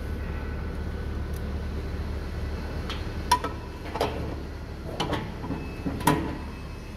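Several sharp metallic knocks and clinks, starting about three seconds in, as the automatic transmission's oil pan is worked loose from the transmission case by hand. A steady low hum runs underneath.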